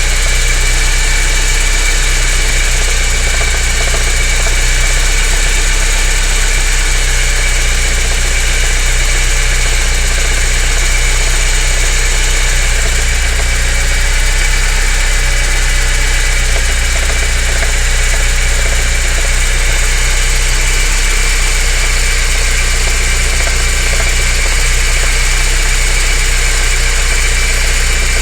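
BMW E30 318is's 1.8-litre four-cylinder M42 engine idling steadily, holding an even speed throughout.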